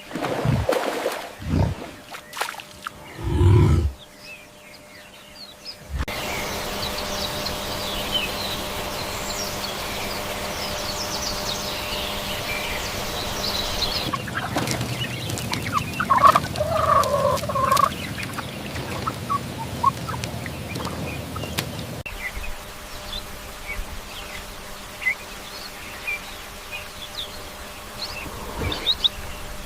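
A turkey gobbling: one loud, wavering call of about two seconds, near the middle. Small birds chirp in the background, and the background changes abruptly a few times as clips are cut together. A few short low animal calls come in the first few seconds.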